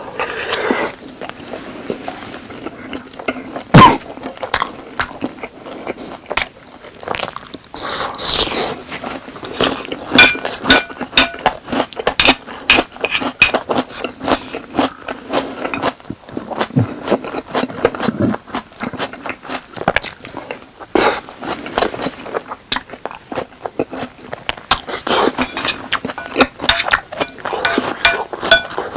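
Close-miked chewing and wet mouth sounds of someone eating boneless spicy chicken with rice: a steady run of small smacks and clicks, with one sharp knock about four seconds in.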